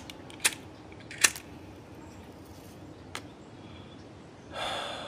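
A quiet break in an electronic track: four sharp clicks, the first the loudest, spread over the first three seconds against a faint low hiss, then a soft swell of hiss near the end.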